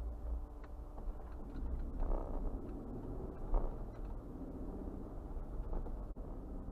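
Steady engine and road rumble heard from inside a vehicle, with two brief thumps about two and three and a half seconds in as the wheels cross railroad tracks.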